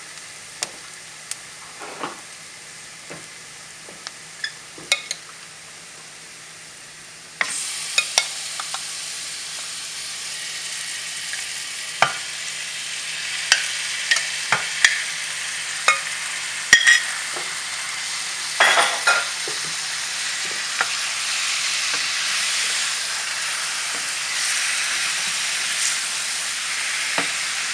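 Onion and spice masala frying in a pan, with a spoon stirring, scraping and tapping. About seven seconds in, the sizzle suddenly gets louder as the marinated chicken goes into the hot pan. The stirring clicks and scrapes go on over a frying hiss that keeps building.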